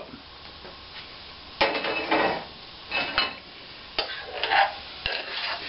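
Cutlery and dishes being handled: several short scrapes and clinks of metal against crockery, with quiet gaps between, as food is served out.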